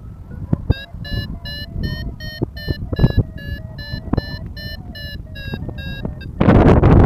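Paragliding variometer beeping rapidly, about three or four short beeps a second: the climb tone that signals the glider is rising in lift. A gust of wind buffets the microphone near the end, briefly covering the beeps.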